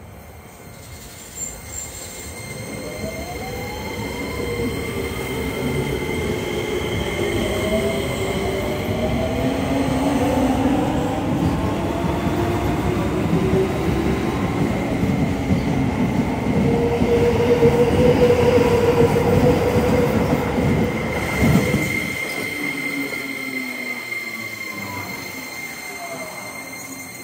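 Keio 8000 series train running, its Hitachi SiC-VVVF inverter and traction motors whining in tones that rise in pitch a few seconds in and fall again near the end. Beneath them, wheel and rail noise swells to its loudest in the middle and drops away about 22 seconds in.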